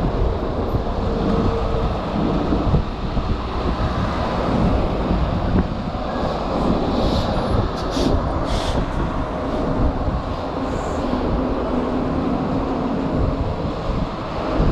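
Wind rushing over the microphone of a moving electric moped, a steady low rumble mixed with city traffic noise, with a few brief high-pitched sounds about seven to nine seconds in.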